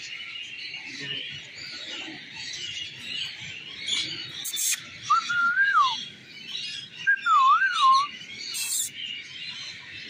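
Parakeets in an aviary chattering and calling continuously. Two loud, clear whistled phrases rise and fall a little past the middle, and two short sharp shrieks cut through.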